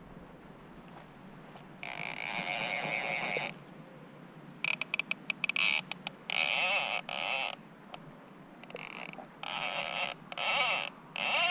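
Fly reel's click-and-pawl ratchet buzzing in about five short bursts, one of them a quick run of separate clicks, as line runs on and off the spool while a hooked salmon is played. The buzz rises and falls in pitch as the spool speeds up and slows.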